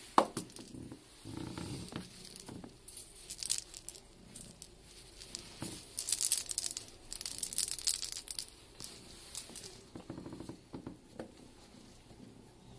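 Rustling and crinkling of a cat toy being waved and batted about in front of a cat, in several spells, loudest about six to eight seconds in. A sharp knock just after the start and a few soft thumps on the carpeted stairs.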